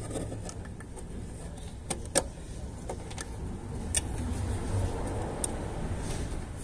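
Small sharp clicks and taps of plastic and metal as a halogen headlamp bulb is handled and fitted into its wiring connector clip, about five clicks with the loudest about two seconds in, over a low steady hum.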